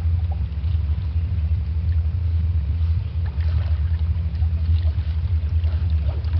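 A steady low rumble, with faint scattered ticks above it.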